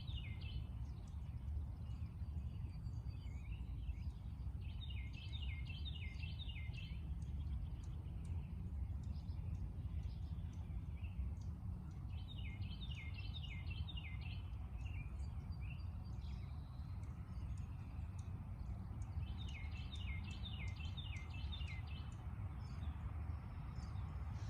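A songbird sings the same phrase of quick, repeated falling notes, each phrase about two seconds long and coming about every seven seconds. Other birds chirp faintly in the background, over a steady low rumble.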